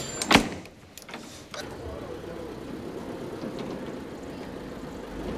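A single sharp knock about half a second in, then a steady low rumble.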